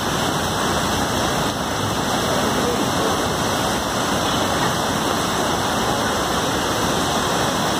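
Steady rushing of a muddy river in full flood, churning water with rain falling.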